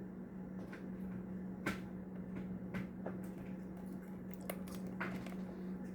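Hands handling a toy car's blister package: a few short clicks and light plastic rustles, the sharpest about two seconds in, over a steady low hum.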